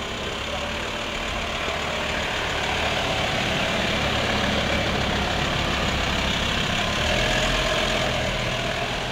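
An ambulance's engine running steadily. The level builds slowly and eases a little near the end.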